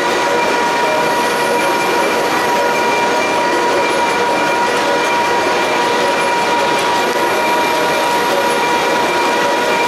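A CBN insert turning a slurry pump impeller on a lathe: a steady metal-cutting noise with a high whine over a hiss.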